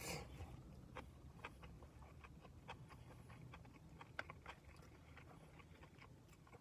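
Quiet eating sounds: a person chewing a gyudon bento, with scattered small clicks over a low steady hum.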